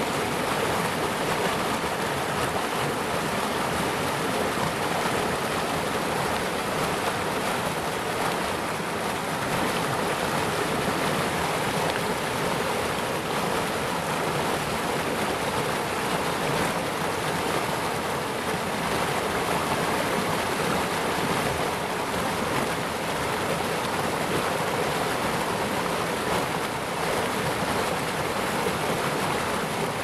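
Mountain stream pouring over a low rock ledge into a foaming pool: a steady rush of water.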